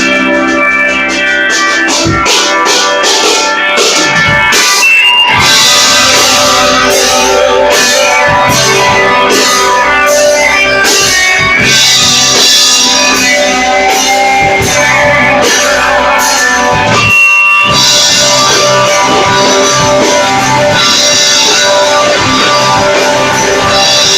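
Live rock band playing, with guitars and a drum kit. The drums come in about five seconds in, and the band pauses briefly about seventeen seconds in before coming back in full.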